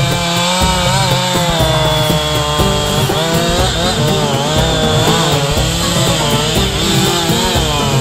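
Chainsaw cutting into the base of a large fire-damaged tree trunk, its engine pitch wavering up and down as the bar works in the cut. Background music plays along with it.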